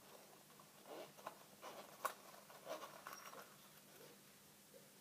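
Faint clicks and short scratching sounds of a small hard object being handled and fiddled with in the hands, with one sharper click about two seconds in.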